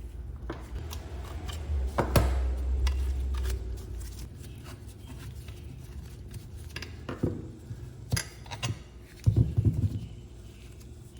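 Hand tools and metal parts being handled: scattered metallic clicks, clinks and scrapes, with a low rumble from about two to three and a half seconds in and a quick cluster of louder knocks near the end.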